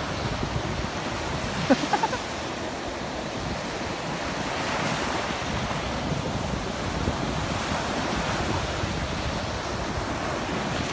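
Sea surf washing onto the beach, with wind buffeting the microphone. About two seconds in, a few short pitched sounds cut through briefly.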